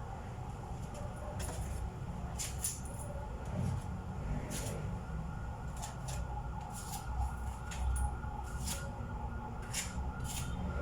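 Putty knife scraping and spreading wood filler across a plywood tabletop in short, irregular strokes, over a steady low background hum.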